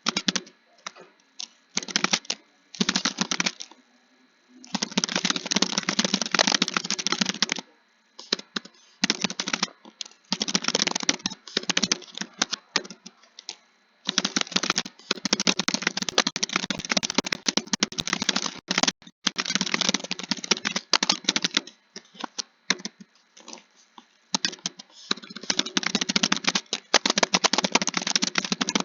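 Computer keyboard being typed on in fast runs of several seconds, broken by short pauses and a few scattered single keystrokes.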